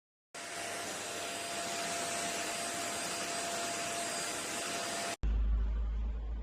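Deerma DX700 stick vacuum cleaner running: a steady rush of air with a thin whine, starting abruptly just after the start and cutting off about five seconds in. A deep low rumble, the loudest sound, takes over at the cut.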